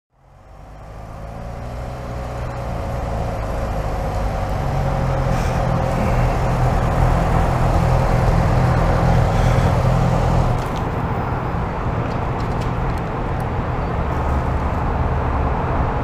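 Motorcycle engine running steadily at low revs, fading in from silence over the first two seconds.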